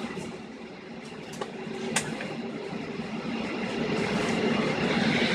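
Cabin noise of a Boeing 737-800 taxiing after landing: its CFM56 engines running at low taxi power over the rumble of the airframe, growing gradually louder toward the end. A sharp click about two seconds in.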